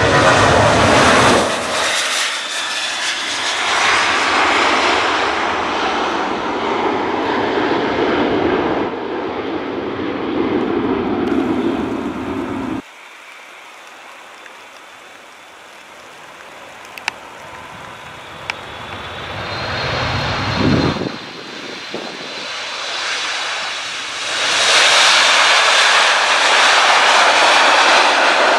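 Jet airliners landing on a wet runway. First a Boeing 737's engines run loud as it rolls out, until an abrupt cut about 13 seconds in. After a quieter stretch, a Boeing 787 Dreamliner's engines build and run loud again over the last few seconds as it touches down.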